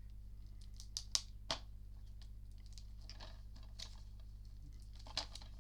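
A DVD case and its packaging handled: a few sharp plastic clicks and light rustling, over a steady low hum.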